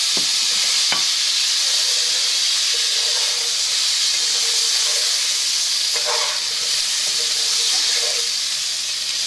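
Boiled potato cubes sizzling steadily in hot oil in a nonstick pan while being stirred with a wooden spatula, with a couple of light knocks in the first second.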